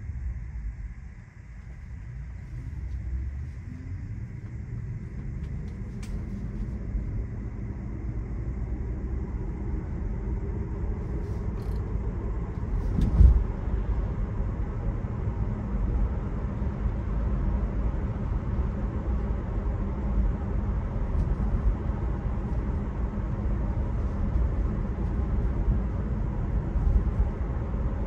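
Inside the cabin of a Tesla electric car pulling away from a stop and cruising: low road and tyre rumble that dips about a second in, then builds as the car gathers speed. A single thump about halfway through is the loudest sound.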